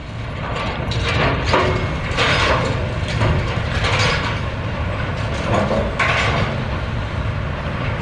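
Sawmill log-deck machinery running: a steady low rumble with irregular metallic clanks and knocks every second or two as logs are moved along the infeed.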